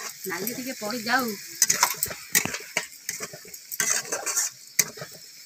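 Metal spatula scraping and knocking against a metal kadai in quick irregular strokes as chowmein noodles are stirred and fried, over a light sizzle of the hot oil.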